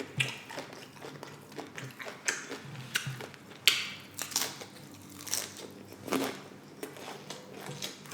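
Close-miked crunching and chewing of loaded nachos: tortilla chips breaking between the teeth in irregular, separate crunches, a few seconds apart.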